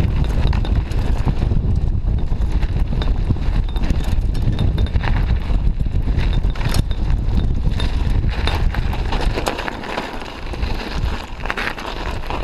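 Mountain bike riding fast down a dirt trail: wind buffeting the mic, with a continuous rattle of clicks and knocks from the bike jolting over bumps. The rumble eases off about ten seconds in.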